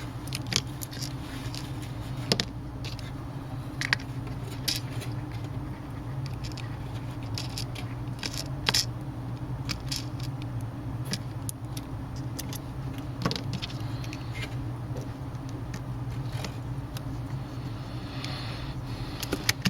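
Scattered small clicks and taps of a screwdriver, screws and tablet parts being handled while a screw is fitted into the tablet's frame, over a steady low hum.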